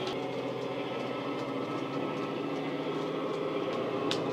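Model Class 68 diesel's DCC sound decoder playing a steady diesel engine sound through a large EM2 speaker, with a few clicks from the coach wheels on the track, one sharper click near the end.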